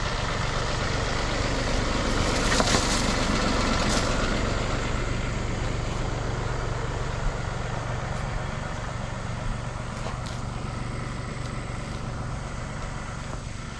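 John Deere 3038E compact tractor's three-cylinder diesel engine running steadily, growing louder for a couple of seconds near the start, then easing back.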